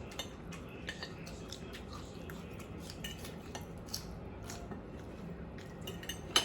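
Cutlery clinking and scraping on plates during a meal: a scatter of small, light clicks, with one sharper clink near the end.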